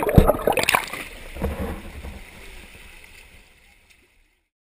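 Water splashing and sloshing around a GoPro in its dive housing as it moves at the surface, with several knocks and splashes in the first second. The sound then dies away to silence over about three seconds.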